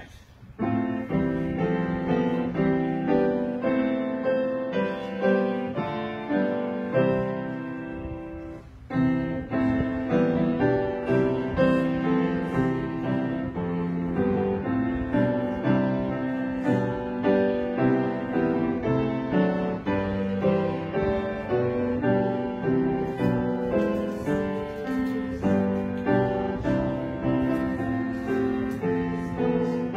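Piano playing a hymn in steady, even chords, with a brief break about eight seconds in before the playing resumes.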